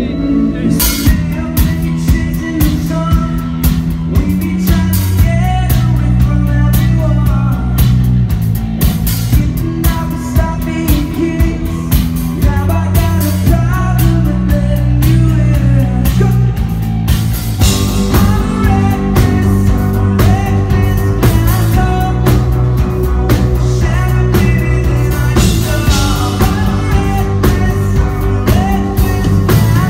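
Live rock band playing a song: guitar, bass and drum kit, with a vocalist singing.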